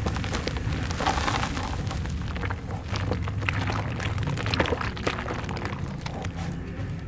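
Hands squeezing and crumbling wet clumps of soft dirt in foamy water in a plastic basin: wet squelching and splashing with many quick crackles, over a steady low rumble.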